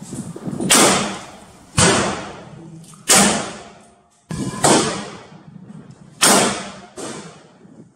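Five black-powder muzzle-loader shots fired in irregular succession, about one to one and a half seconds apart, each a sharp crack that dies away quickly.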